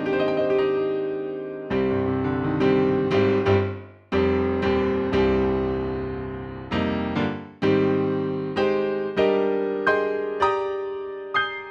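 Yamaha P-125A digital piano playing slow chords, each struck and left to die away before the next. Near the end come quicker, higher notes.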